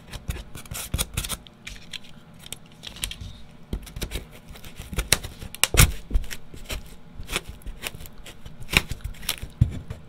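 Irregular scraping, creaking and sharp clicks of rigid extruded-polystyrene foam board being worked by hand as a square plywood block is pushed and fitted into a hole cut in it.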